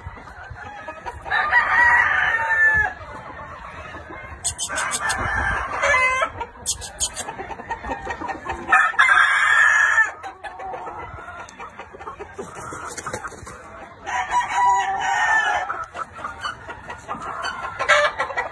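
Gamecock roosters crowing: four long crows a few seconds apart.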